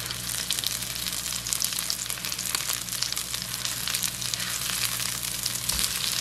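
Chicken patties frying in hot olive oil in a nonstick skillet: a steady sizzle with dense crackling spatter, while a spatula is worked under and around them in the pan. A soft low bump near the end.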